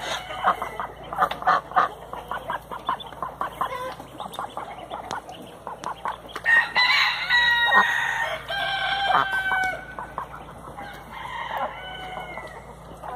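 Cayuga duck and her week-old ducklings calling: a quick run of short calls in the first few seconds, then louder drawn-out peeps around the middle that step down in pitch.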